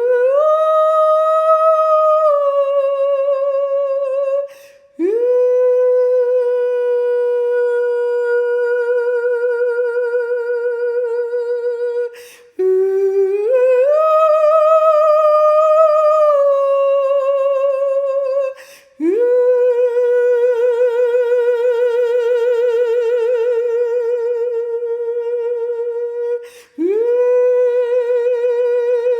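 A woman's voice singing long wordless notes for sound healing, each one sliding up into pitch and then held with a slow vibrato. Short breaths come between the notes, about every six to eight seconds.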